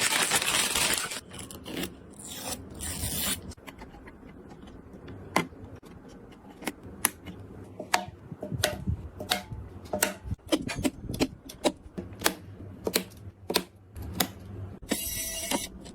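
PC parts being handled and fitted during a build: rustling and scraping at the start and again near the end, with a run of sharp clicks and light knocks in between.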